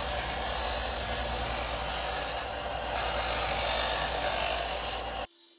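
Ryobi belt-and-disc sander running steadily with a plywood piece pressed against its sanding disc, a continuous grinding hiss over the motor's hum. The sound cuts off suddenly near the end.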